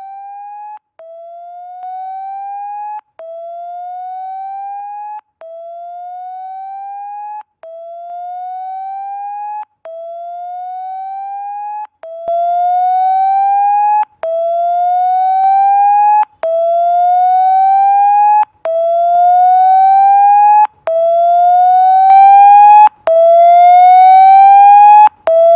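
Phone's built-in clear-speaker function playing its speaker-cleaning tone through the phone's own loudspeaker: one tone sweeping upward over and over, each sweep about two seconds long, stepping up in loudness about halfway through. The tone is meant to shake dirt out of the speaker.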